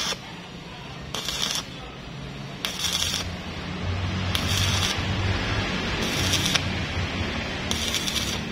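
Electric arc welding on steel: a continuous crackling hiss, with louder, brighter bursts about every second and a half.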